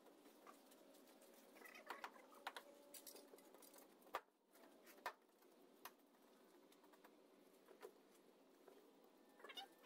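Near silence, broken by faint, scattered clicks and scrapes from a hand cutting tool working into a pot-grown root ball to trim away roots. The loudest click comes about four seconds in.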